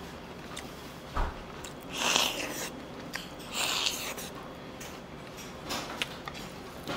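Close-up eating sounds: chewing and mouth noises, with two short hissing bursts around two and four seconds in. A dull bump about a second in, and light utensil clicks against a dish.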